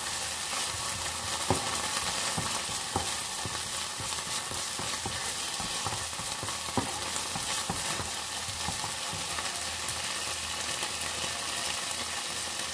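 Chopped onion and tomato sizzling in oil in a nonstick frying pan, with a wooden spoon stirring and scraping through them and knocking against the pan every second or so.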